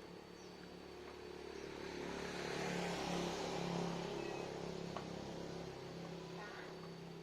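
A steady low motor hum, with a passing vehicle swelling up and fading away about three seconds in.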